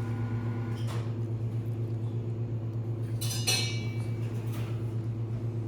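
A steady low hum with evenly spaced overtones, like a motor or appliance running, and a brief bright clink about three seconds in.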